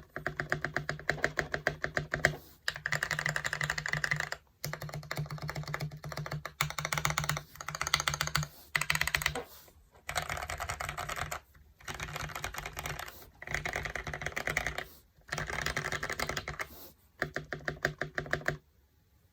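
Typing on a Womier K66 hotswap mechanical keyboard with a polycarbonate case and lubed, filmed Banana Split linear switches: fast runs of keystrokes in bursts with short pauses between them, stopping near the end.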